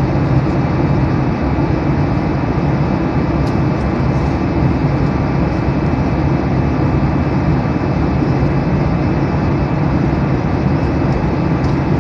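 Steady rushing cabin noise of an airliner in flight: an even roar of engine and airflow, heaviest in the low end, with a faint steady hum above it.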